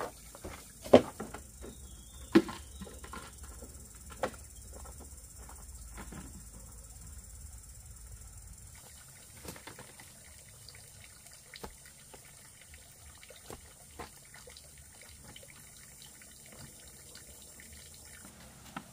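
Water trickling and splashing, broken by sharp knocks and clacks. Three loud knocks come in the first five seconds, followed by fainter scattered clicks.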